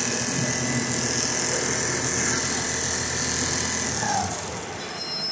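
Computer-controlled rotating-head sewing machine running steadily as it stitches thick quilted winter-jacket material. About four seconds in the running eases off, and near the end there is a brief loud clank with a high ring.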